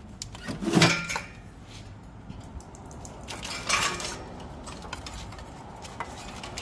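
Metallic clinks and rattles from handling the old fuel pump sending unit and its wiring as it is worked free of the fuel tank, with a louder clatter just under a second in and another about four seconds in.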